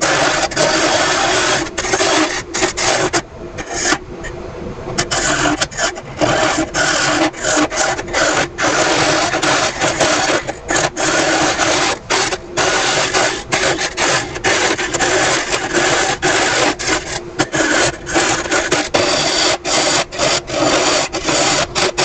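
Hollowing tool cutting inside an Ashe juniper vase spinning on a wood lathe: a continuous rasping scrape of wood, broken by many brief gaps as the tool bites and eases off, over a steady low tone.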